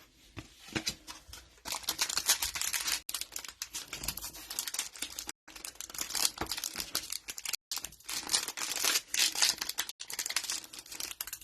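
Trading card pack wrapper crinkling and tearing as packs are ripped open and handled, a dense rustling crackle with many small clicks that breaks off abruptly a few times.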